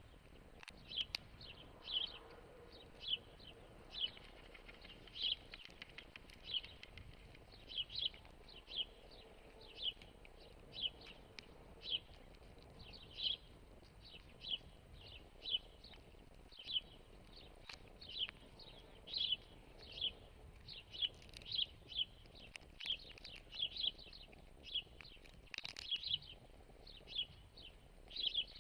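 A bird chirping over and over in a steady rhythm, short high chirps about twice a second, each dropping slightly in pitch.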